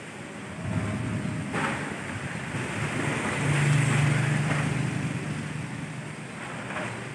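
Strong wind blowing across the microphone, with a low rumble that swells and fades about three to five seconds in.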